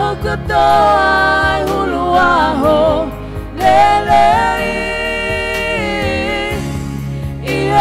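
Voices singing a Tongan hymn over a sustained accompaniment, in slow melodic phrases with long held notes.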